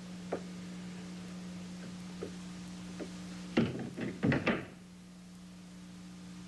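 A quick cluster of four or five knocks and thuds, with a few faint clicks before it, over a steady low hum.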